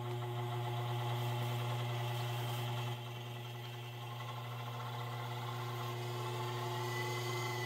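Crankshaft balancing machine spinning up a Ford 302 crankshaft fitted with bob weights and a flexplate: a steady hum with a whine that slowly rises in pitch as it comes up toward 600 rpm. The level dips slightly about three seconds in.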